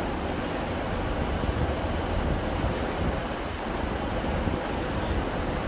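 Steady low rumble of railway station ambience under a large train shed, with a passenger train idling at the platform.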